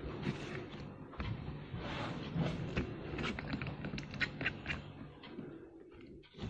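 Light plastic clicks and creaks of a small tripod's phone clamp being loosened and turned by hand, a quick string of ticks that thins out near the end.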